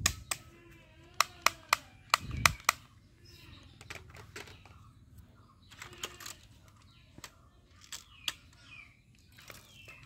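Plastic toy gun giving a series of sharp, irregularly spaced clicks, several close together in the first three seconds and sparser after.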